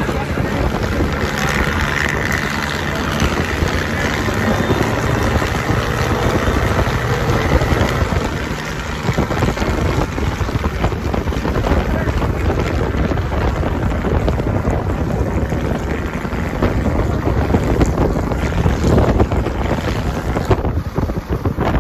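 Wind buffeting the microphone over a steady engine drone from vehicles on the move.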